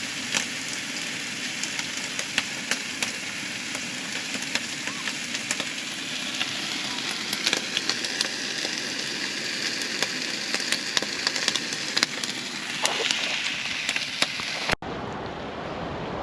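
Rain pattering: a steady crackling hiss with many sharp drop ticks. It cuts off near the end to a softer rush of wind.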